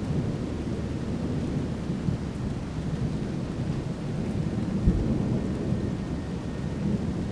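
Thunder rumbling low and continuously through a thunderstorm, with a sharper low boom about five seconds in, over a steady hiss of rain.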